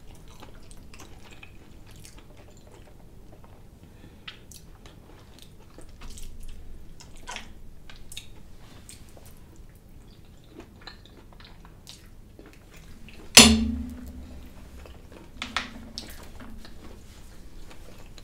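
Close-miked chewing and small mouth and fork clicks of someone eating creamy Alfredo pasta with shrimp and crab, with one sharp loud knock of something hitting the table or dish about 13 seconds in.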